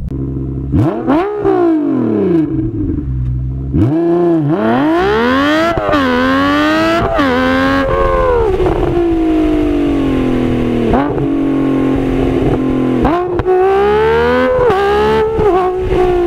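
Nissan 370Z's 3.7-litre V6 through an AAM Short Tail exhaust, played back sped up so it sounds high-pitched, like a Formula 1 car. The engine revs hard through the gears, its pitch climbing and then dropping sharply at each upshift, several times over.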